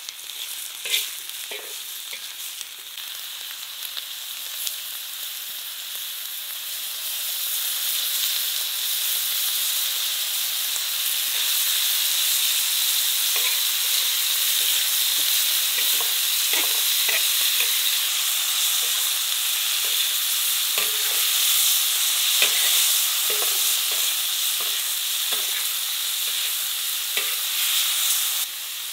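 Beef and lamb fat sizzling as they fry in a wide black metal pan, stirred with a metal slotted skimmer that scrapes and clinks against the pan. The sizzle grows louder over the first several seconds.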